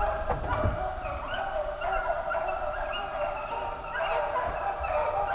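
A pack of deer hounds baying in chorus while running a deer's trail, many drawn-out bawls from several dogs overlapping.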